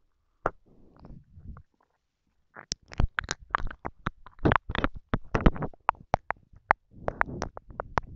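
Close-miked ASMR mouth sounds: wet lip and tongue clicks and saliva smacks in quick, irregular runs. After a short quiet gap a couple of seconds in, they come thick and fast.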